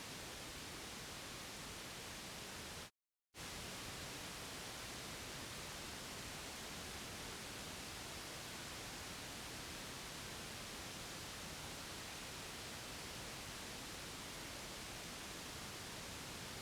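Steady white noise, an even hiss spread across the whole range with no tones or rhythm, as played to soothe a baby to sleep. About three seconds in it cuts out to complete silence for under half a second, then resumes unchanged, like a loop join.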